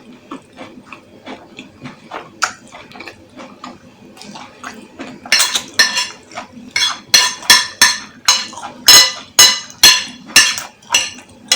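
Metal cutlery clinking and scraping against a dish: soft, quick taps at first, then from about halfway loud, ringing clinks about twice a second.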